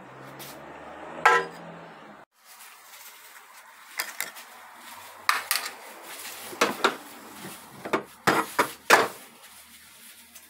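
Steel clutch drums and gear parts of a 6R80 automatic transmission clinking and clanking against each other and the case as they are handled. There is one loud clank about a second in, then a string of sharper clinks.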